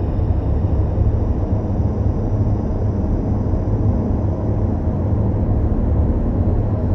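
Dark ambient drone music: a steady, deep rumbling drone with most of its weight in the low bass, and faint high tones fading out near the start.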